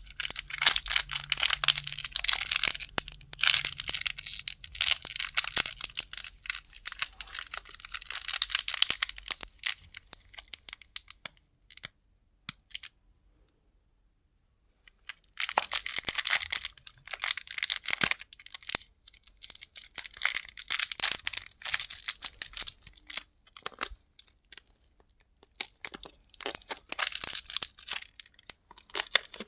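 Plastic candy wrappers being crinkled and torn open close to the microphone, a dense run of crackles. The crackling stops for a few seconds near the middle, then resumes.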